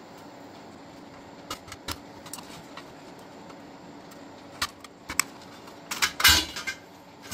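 Scattered light metal clicks and taps as a screwdriver works at the sheet-metal top cover of a floppy disk drive, then a louder, longer metal scrape and rattle about six seconds in as the cover comes off.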